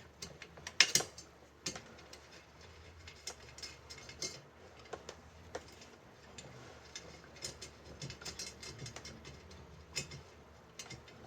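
Irregular light metallic clicks and ticks from a bicycle wheel being taken apart by hand, its spokes being worked loose and handled, with a sharper click about a second in.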